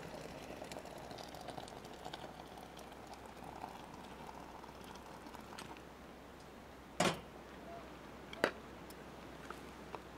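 Hot water poured from a stainless steel kettle into a plastic French press, rising slightly in pitch as the press fills, for about five seconds. After the pour stops come two sharp knocks about a second and a half apart.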